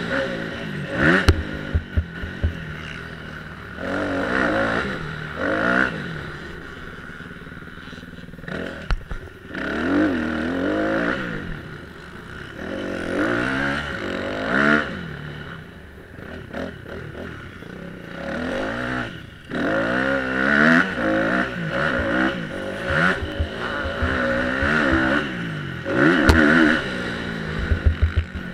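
Motocross bike engine revving hard in repeated bursts, pitch climbing and dropping as the throttle is opened and shut between corners, with sharp knocks and clatter from the bike over the ruts.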